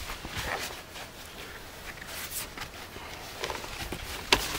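Fabric seat of a folding camping chair rustling as it is stretched over the pole frame's legs, with one sharp click near the end.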